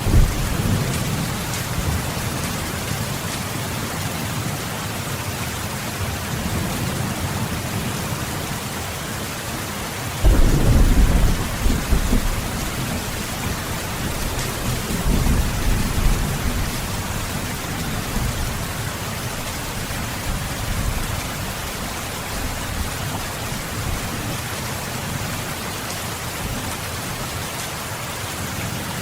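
Steady heavy rain with thunder: a rumble right at the start, and a louder rolling rumble about ten seconds in that comes back in waves for several seconds.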